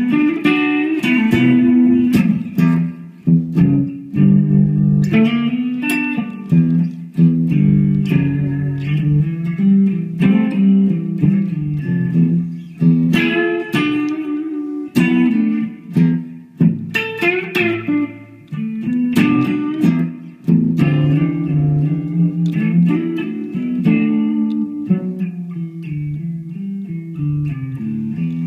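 Epiphone Les Paul Custom electric guitar played clean on its Seymour Duncan SH-2 Jazz neck pickup alone: a continuous run of picked single notes and chords.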